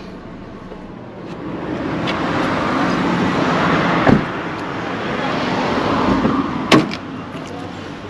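Cars passing on a street, the traffic noise swelling and fading twice, with a sharp knock about four seconds in and a car door shutting near the end.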